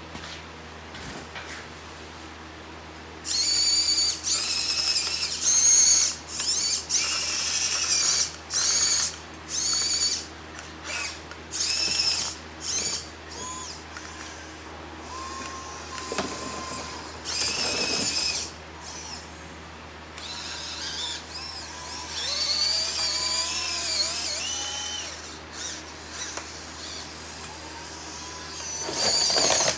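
Huina 1592 RC excavator's small electric motors and gearboxes whining in short start-stop bursts, about a dozen in all, as it is driven and its arm is worked. A longer stretch with the pitch wavering up and down comes past the middle.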